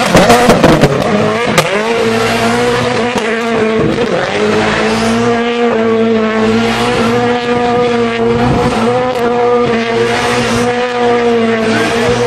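Rally car spinning donuts, its engine held at high, near-steady revs while the tyres squeal continuously. A few sharp cracks stand out in the first second or two.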